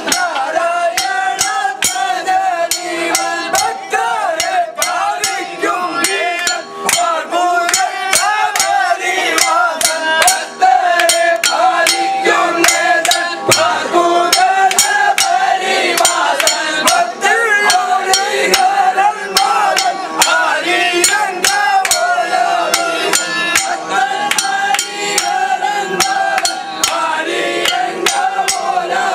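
Men singing a Vanchipattu boat song in chorus, a lead voice answered by the group, over a steady beat of sharp metallic strikes about twice a second, typical of small hand cymbals keeping the rhythm.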